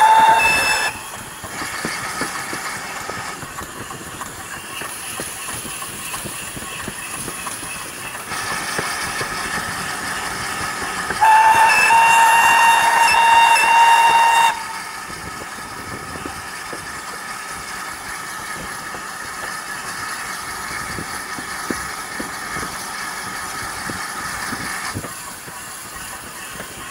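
Steam locomotive running with its train over the rails, sounding its steam whistle twice. The first is a short blast that rises slightly in pitch and ends about a second in. The second is a louder, steady blast of about three seconds that starts about eleven seconds in.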